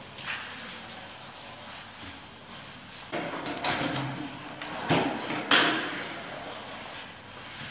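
A string mop swishing over a wet floor, then set into a mop bucket's wringer with a series of clunks and knocks, the loudest about five and a half seconds in.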